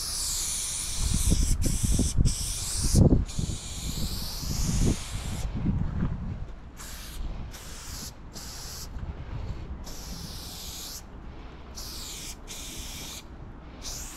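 Aerosol spray paint can hissing in about ten short bursts with brief pauses between them, as black outlines are sprayed on. A low rumble on the microphone sits under the spray in the first half.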